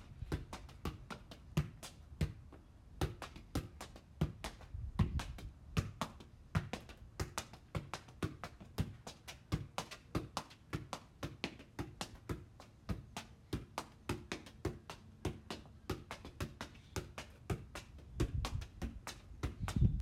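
Soccer ball footwork on a concrete patio: an irregular run of sharp taps, several a second, as the ball is touched with the feet and shoes scuff and step on the concrete.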